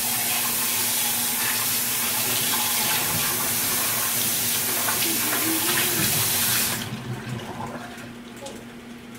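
Kitchen faucet running hard into the sink, rinsing out an emptied chicken-liver container. The tap shuts off sharply about seven seconds in.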